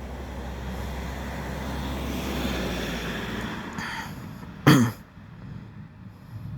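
A car driving past on the street, its tyre and engine noise swelling and then fading away. Just under five seconds in, a short, loud sound cuts in briefly.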